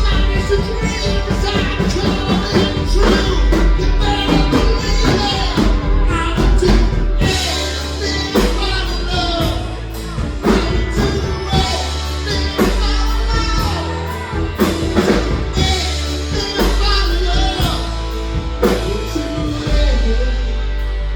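Live rock band playing a song, with a singer over drums and a heavy bass line.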